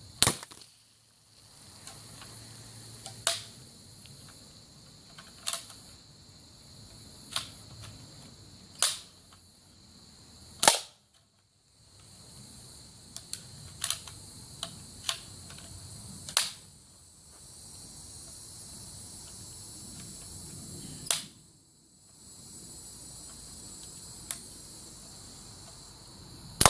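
Gunshots fired at a soda can: about a dozen sharp cracks at uneven intervals of one to three seconds, with a cluster of quick shots around 13 to 15 seconds in and the loudest one about ten seconds in.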